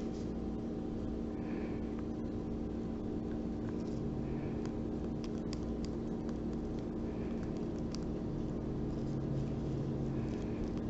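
Fingers softly scratching and tapping a coconut's rough, hairy husk, with a few light ticks, over a steady low hum.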